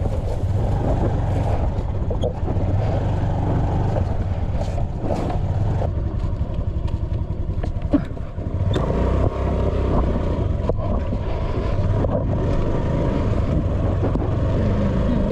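A motor vehicle's engine running steadily, with a few short knocks or rattles along the way.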